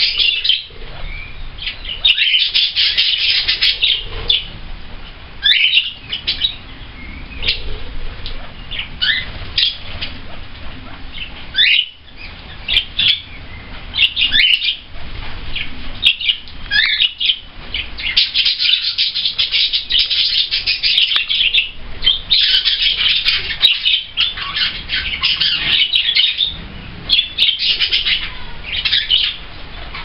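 Pet budgerigars and cockatiels calling together: dense bursts of chattering and warbling, broken by single sharp chirps and a few quick rising chirps.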